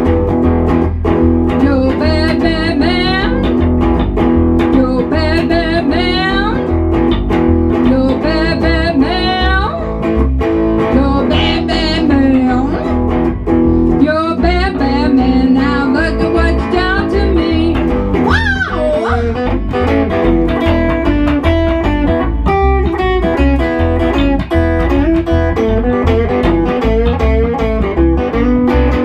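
Instrumental break of a song: a Gretsch hollow-body electric guitar plays bending lead phrases over an upright double bass keeping a steady beat.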